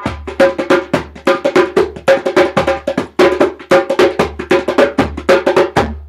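Percussion intro music: a fast run of sharp strikes, about four a second, each ringing with a clear pitched tone, over a low held bass note. The strikes stop near the end and the bass note fades out.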